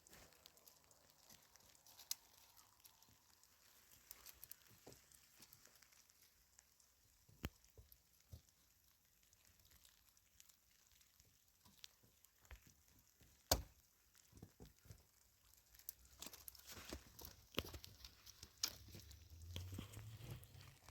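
Quiet, with scattered small clicks and knocks and one sharper knock about two-thirds of the way in. The small sounds grow busier near the end, over a low rumble.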